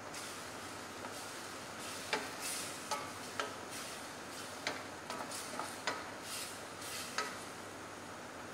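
Wooden spoon stirring chicken in a thick sauce in a stainless steel saucepan, knocking against the pan about ten times at irregular intervals between about two and seven seconds in, over a steady low sizzle.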